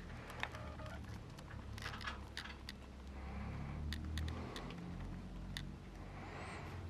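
Faint, irregular scuffs and soft squelches of boots moving over mud, with scattered small clicks of gear and a low rumble underneath.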